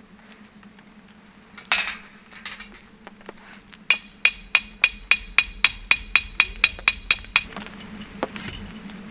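Metal clicking as a Feuerhand hurricane lantern is handled during lighting: a short scrape about two seconds in, then an even run of about fourteen bright metallic ticks, roughly four a second.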